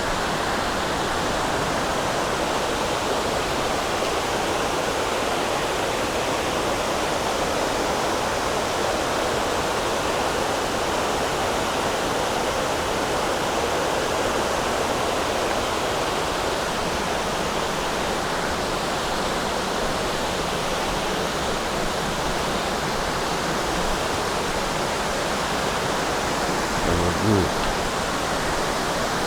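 Steady, unbroken rush of a waterfall, its falling water heard as an even hiss.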